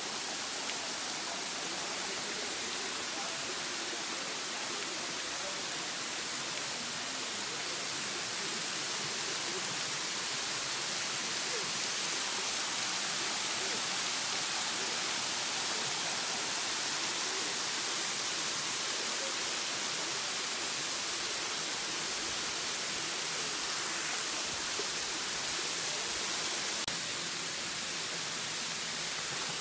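Steady rush of water from a small waterfall spilling over rock into a pool, a constant even hiss.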